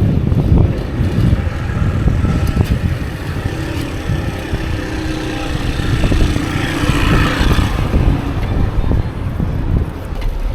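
Wind buffeting the microphone with road noise while a fixed-gear bicycle is ridden through city traffic. A motor vehicle's engine hum is heard alongside for a few seconds in the middle.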